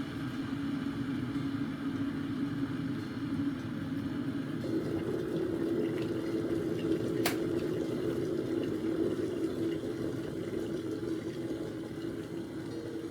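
A steady mechanical hum with a haze of noise behind it; its pitch steps up a little about five seconds in, and a single sharp click comes about seven seconds in.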